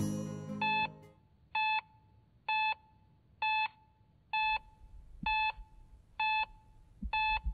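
Hospital patient monitor beeping steadily, a short pitched beep about once a second, as the music fades out in the first second.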